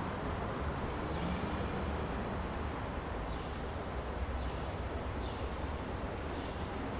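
Steady low rumble and hiss of outdoor night ambience, with faint short high chirps now and then.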